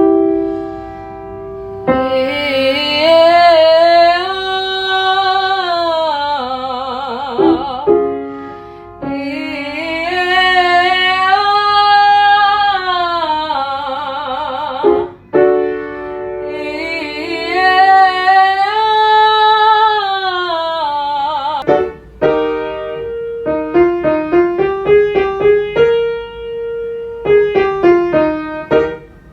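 A singer vocalising a five-note scale up and back down on a held vowel, three times in a row with vibrato, over piano chords. In the last several seconds the piano plays alone, picking out the next notes of the exercise.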